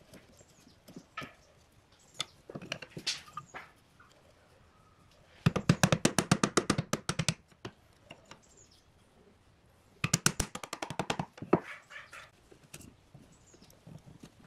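Rapid light taps of a mallet on a wood chisel cutting a notch into a thin wooden strip, in two quick runs of about ten taps a second, one about five and a half seconds in and one about ten seconds in. Between them come scattered clicks and scrapes of the chisel paring the wood.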